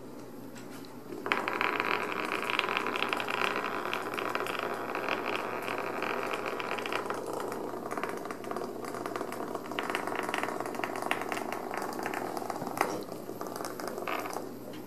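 Sheer organza bags rustling and crinkling as kittens scramble and pounce over them on a wooden floor, a dense crackly rustle that starts about a second in, eases off for a moment midway, and stops shortly before the end, over a steady low hum.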